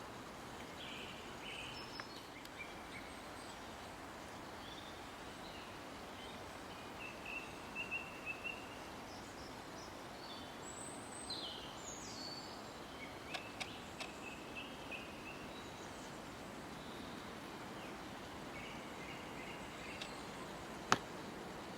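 Forest ambience of several songbirds chirping and calling in short scattered phrases over a steady hiss, with a short trill about a third of the way in. A single sharp click near the end.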